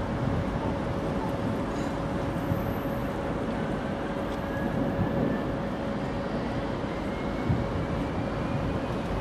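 Electric train running past on the tracks: a steady rumble with a few knocks and a faint whine rising slowly in pitch in the second half.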